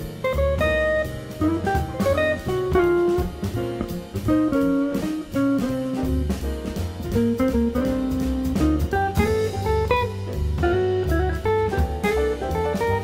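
Jazz guitar playing a single-note melodic line, with drums keeping time on cymbals and a bass underneath.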